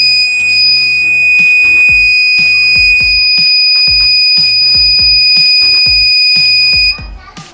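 The homemade loop-break alarm's buzzer sounding one steady, high-pitched tone that cuts off suddenly about seven seconds in. Background music with a steady beat plays underneath.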